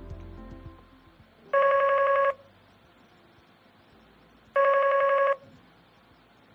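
Matrix EON48 desk phone ringing for an incoming call: two short electronic rings about three seconds apart.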